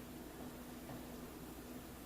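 Quiet room tone: a faint even hiss with a low steady hum and no distinct event.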